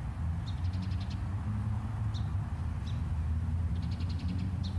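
Small birds chirping outdoors: several short high chirps and two quick high trills, over a steady low rumble.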